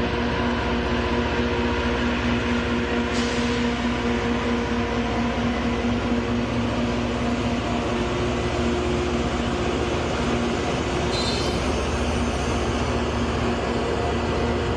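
Loram rail grinder train rolling past, its diesel power units running with a steady drone under the rumble of wheels on rail. A brief high squeal comes in about eleven seconds in.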